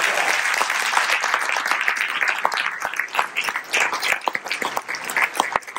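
Audience applauding, a dense round at first that thins out into scattered separate claps toward the end.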